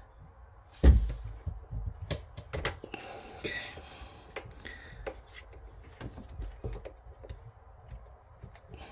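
Close handling noises as PTFE (Teflon) tape is wrapped around a pipe thread: a loud knock about a second in, then scattered light clicks and rustles.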